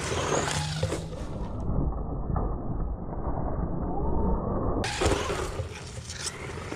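XLF X03 1/10-scale brushless electric 4WD RC truck driving over dirt and grass: motor whine with tyres scrabbling and throwing up dirt and debris.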